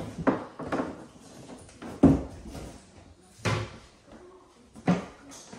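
About five separate knocks and bangs, the loudest about two seconds in, as a toy kitchen's cupboard door is opened and shut.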